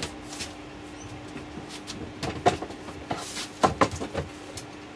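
A few short knocks and clatters of things being handled and set down on a table, the sharpest about halfway through and a cluster near the end, over a faint steady hum.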